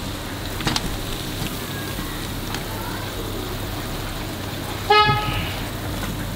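A single short vehicle horn toot about five seconds in, over a steady background hum; a faint click sounds under a second in.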